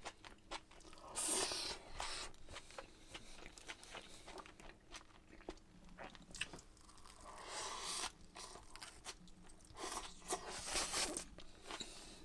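Close chewing and crunching of a mouthful of pork steak with crisp fried garlic chips, onion and shredded cabbage, with small clicks throughout and louder crunches about a second in, near the middle and near the end.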